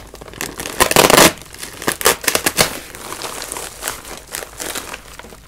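A mailed package being torn open by hand, with a loud rip about a second in, then its wrapping crinkling and crackling as the contents are pulled out.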